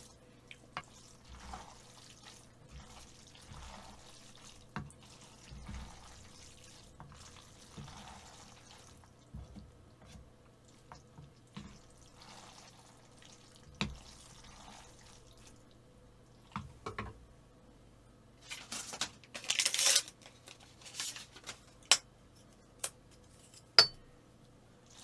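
Wide kalguksu noodles in thick black bean sauce being stirred and tossed in a large basin with chopsticks and a spoon: soft wet squelching with scattered clicks of utensils against the bowl. A louder stretch of sloshing comes about three quarters of the way in, and a few sharp knocks come near the end.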